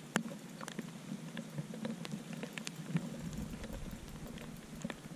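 Rain falling, with single drops tapping irregularly close to the microphone. A low rumble joins about three seconds in.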